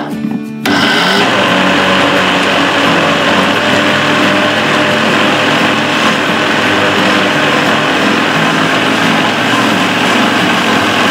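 A Steinborg HY-200 1,500-watt high-speed blender runs at full speed, blending pumpkin chunks into a smooth purée. About half a second in, the motor sound drops briefly and then surges back up, and it runs steadily from then on.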